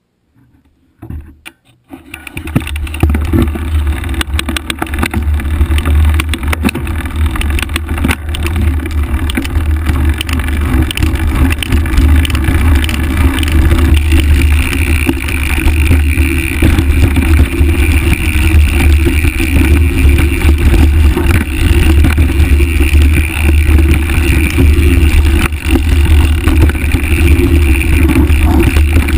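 Wind buffeting the microphone and knobby mountain-bike tyres rumbling over a dirt trail on a fast downhill run: a loud, steady low roar that starts about two seconds in.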